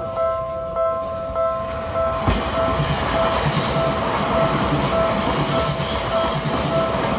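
Level-crossing warning bell ringing in steady repeated strokes, then about two seconds in a Seibu Ikebukuro Line electric train passes over the crossing, its wheels rumbling and clattering in a regular rhythm over the rail joints.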